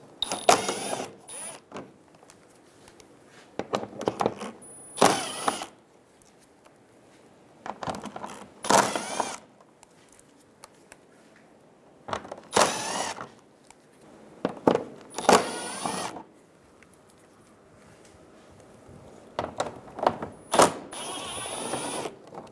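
Cordless impact driver fitted with a 10 mm socket running in about ten short bursts, mostly in pairs, each a second or less, with a motor whine that rises and falls, as it backs out the bolts along the bottom of a car's front bumper cover.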